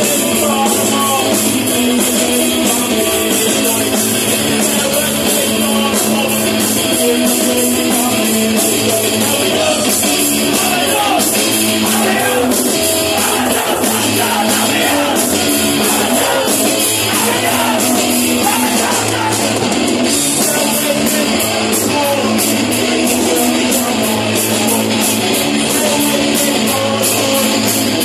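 Live punk rock band playing loud: electric guitars, drums and singing, heard from within the crowd.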